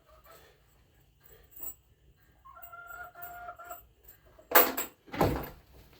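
A hen gives a short run of pitched clucks about midway, then two loud knocks a little over half a second apart near the end as a wooden board is set back into place.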